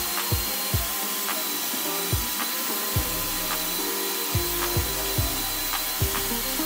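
Table saw running and ripping a plywood panel, a steady even noise from the blade cutting through the wood. Background music with a regular low beat plays over it.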